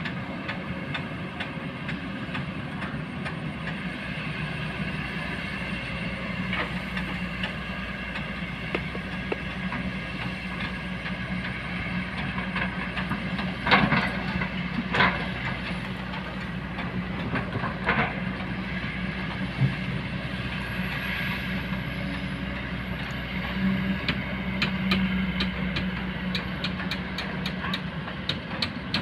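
Kobelco hydraulic excavator working, its diesel engine running steadily. A few sharp metal clanks come about halfway through, and a quick run of clicks and rattles comes near the end.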